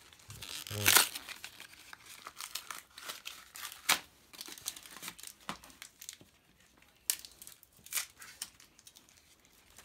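Foil wrapper of a Pokémon booster pack crinkling and tearing as it is handled and opened, in irregular crackles, loudest about a second in.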